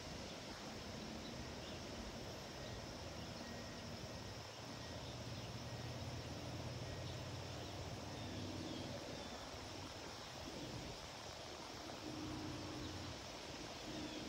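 Faint, steady, distant rumble of jet airliners passing high overhead at cruising altitude, heard through an outdoor background hiss.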